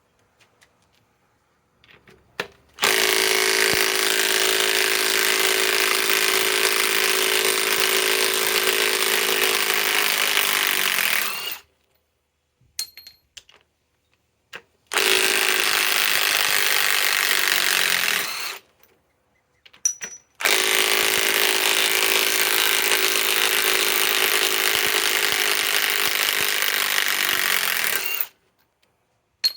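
Milwaukee M18 Fuel 3/8-inch compact impact wrench running in reverse, backing out 4-inch fasteners. There are three long, steady runs: about nine seconds, about three and a half seconds, and about eight seconds, with short pauses and small clicks between them.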